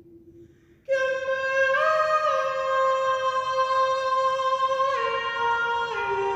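A woman's solo voice singing an intuitive chant in an invented 'star language', entering about a second in with long held notes that step up once and then down twice. Just before she enters, a low steady tone dies away.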